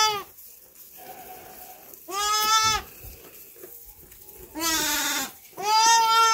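Newborn lambs bleating: short, high calls, three of them after the tail of one at the start, the last two coming close together near the end.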